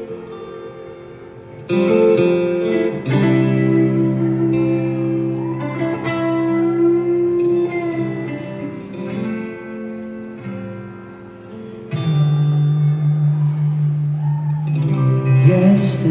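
Live rock band playing an instrumental passage led by electric guitars: held chords that change every second or two, swelling up in loudness about two seconds in and again near twelve seconds. A bright hissing layer joins near the end.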